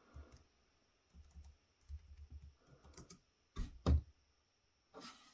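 Typing on a computer keyboard: a run of light key clicks, with two louder clicks between three and a half and four seconds in.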